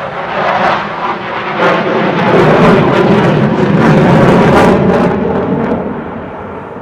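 Jet plane passing, its roar building to a peak about halfway through and then falling away, with a crackling edge at its loudest.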